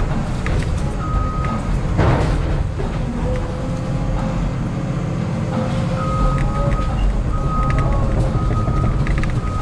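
Caterpillar excavator's diesel engine running under load, with a hydraulic whine that comes and goes as the boom, bucket and thumb work a stump and brush. Wood and roots crackle loudly about two seconds in.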